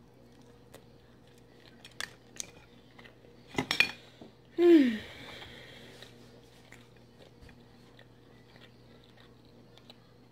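Dungeness crab shells clicking and cracking against a plate as crab is picked and eaten, with a cluster of sharp cracks about three and a half seconds in. Right after, a short voice sound falling in pitch, the loudest thing here. A low steady hum runs underneath.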